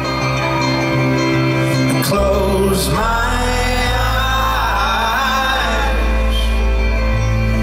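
Live folk-rock band playing acoustic guitar and upright double bass, the bass holding long low notes, with a sung melody over it from about three seconds in.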